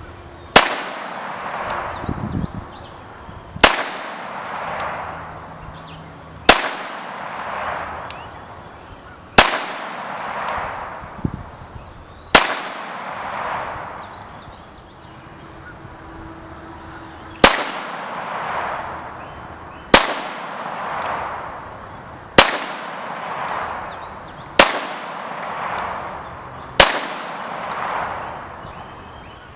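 9mm Glock pistol shots fired one at a time, ten in all, a few seconds apart, each crack followed by a fading echo.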